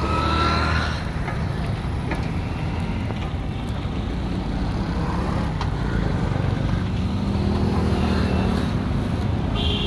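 Engine of a belt-driven sugarcane crusher running steadily with a low, even hum.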